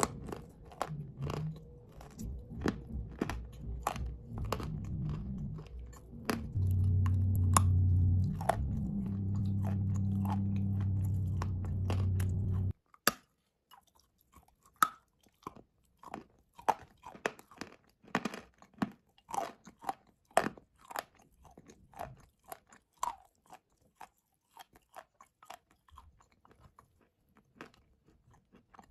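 Close crunching and chewing of hard chunks of blue clay, many crisp cracks as pieces are bitten off and ground between the teeth. Under the first half a steady low hum runs, louder from about a quarter of the way in, and cuts off suddenly near the middle.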